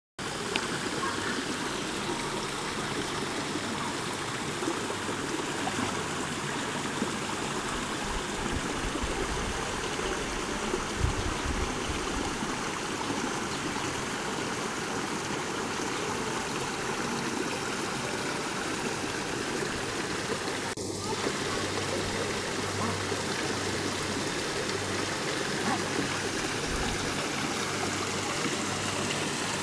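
Small waterfall pouring over rocks into a pond, a steady splashing rush of water.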